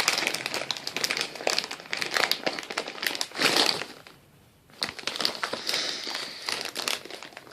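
A seaweed snack packet being crinkled and handled as it is opened, with dense crackling. There is a short lull about four seconds in before the crinkling starts again.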